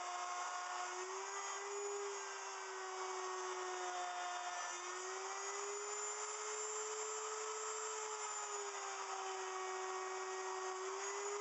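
Wood router on a router milling machine running steadily while cutting feet into the underside of a cedar block. Its whine wavers slightly up and down in pitch over a steady hiss of cutting.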